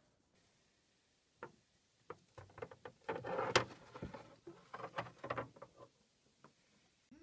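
Hamster scrabbling and knocking about under a small wooden toy chair on a wooden floor: a run of light taps, clicks and scuffles, busiest midway with one sharp knock.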